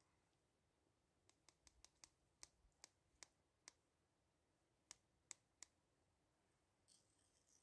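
Near silence with a string of faint, sharp metallic clicks from a small metal pot and cup being handled as tea is poured. There are about ten clicks in quick succession between one and four seconds in, then three more about a second later.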